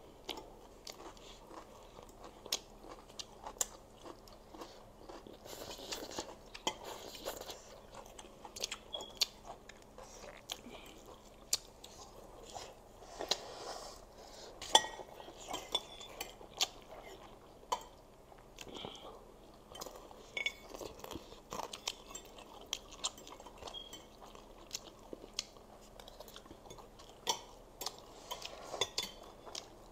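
Close-up eating sounds of spicy instant noodles: slurping, wet chewing and smacking, with forks clicking against plates, as many short sharp sounds scattered throughout.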